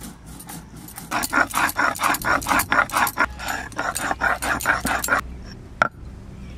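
Stone pestle rubbed back and forth on a stone grinding slab (sil-nora), grinding cumin and coriander into a wet paste: rhythmic rasping strokes, about four a second, that stop abruptly about five seconds in. A single sharp click follows shortly after.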